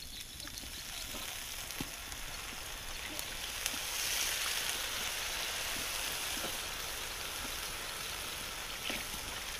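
Water poured in a circle onto rice frying with chicken in a hot plow-disc pan, sizzling hard. The hiss builds over the first few seconds, is loudest around four to five seconds in, then settles to a steady sizzle.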